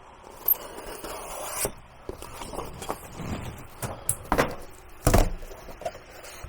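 Irregular scraping and knocking, with a heavier thump about five seconds in.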